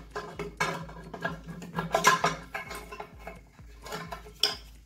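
Chrome-plated bidet siphon and waste pipe parts clinking and rattling in a series of irregular metallic clicks as they are handled and pulled free from the drain.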